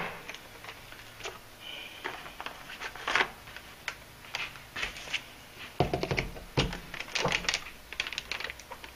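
Plastic clicks, taps and rattles of a small disposable spray-gun cup and its lid as the lid is pressed and snapped on. There is a short high squeak about two seconds in, and a busier run of clicks in the second half.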